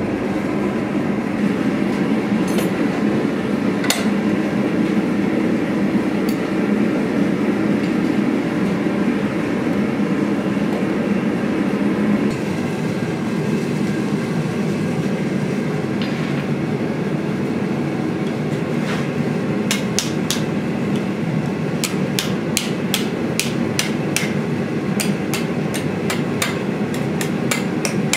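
A forge burner running with a steady rushing roar. About twenty seconds in, a hammer starts striking red-hot steel on an anvil in a quick run of sharp blows, two or three a second, over the burner noise.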